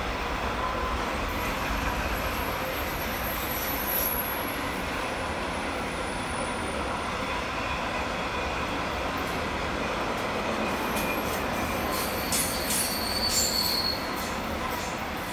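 A long intermodal freight train's container and tank-container wagons rolling past on a curve, a steady noise of wheels on rail. Short high-pitched wheel squeals and clicks come in about twelve seconds in.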